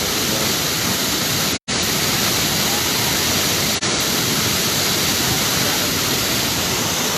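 Waterfall rushing: a dense, even roar of falling water. It cuts out for an instant about a second and a half in.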